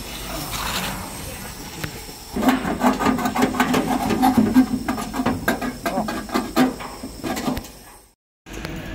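Loud, irregular rustling and scraping of a large sheet of packing material being pulled away from a laser cutting machine bed, starting about two seconds in. The sound cuts out briefly near the end.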